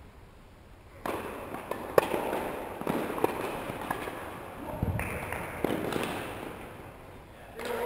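Tennis balls struck by rackets during a rally: a series of sharp pops about a second apart, the loudest about two seconds in, over a noisy background with voices.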